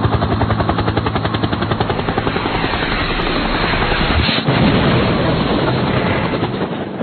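Sound effect of an animated channel intro: a fast, even pulsing with a whoosh-like swell about four seconds in, fading out near the end.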